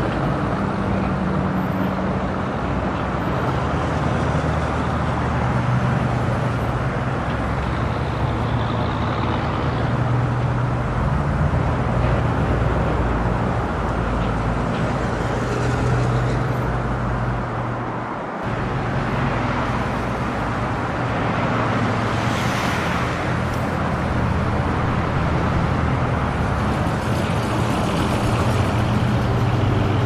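Street traffic: a steady mix of car and truck engines running at low speed with tyre noise. A vehicle passes closer about two-thirds of the way in, adding a brief hiss.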